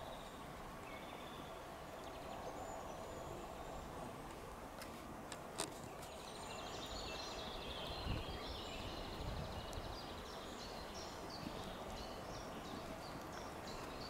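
Faint woodland ambience: a steady low hiss with small birds chirping and trilling, most of it in the second half, and a few soft knocks.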